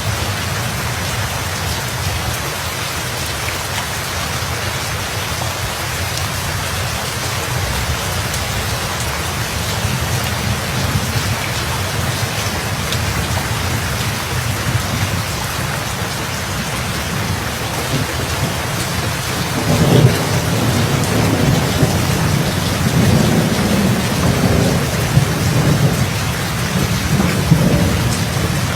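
Steady heavy rain, with rolling thunder rumbling in about two-thirds of the way through and swelling several times.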